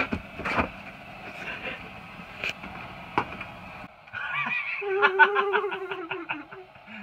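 A few sharp knocks and thumps, then a person laughing in a quick run of pulses.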